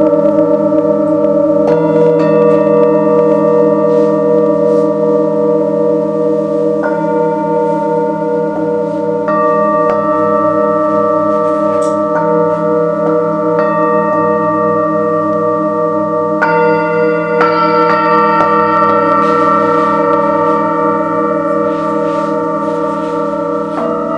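Singing bowls ringing together in long overlapping tones with a slow wavering pulse. A bowl is struck every few seconds, each strike adding a new, higher ringing tone over the sustained hum.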